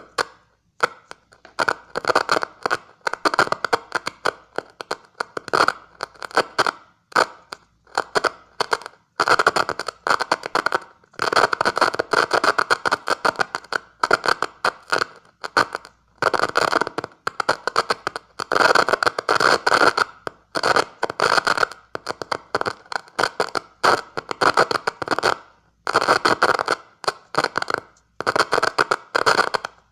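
Morse code keyed on a makeshift switch of two screwdriver contacts, coming out as crackly, scratchy bursts of uneven length with short silent gaps between them.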